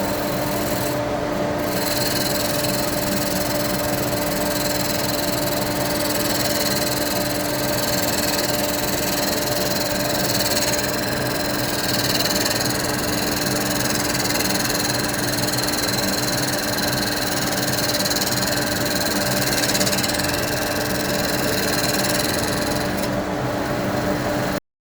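Charnwood W824 midi woodturning lathe running, a turning tool cutting a spinning wooden blank: a steady motor hum under a continuous shaving hiss that cuts off suddenly near the end.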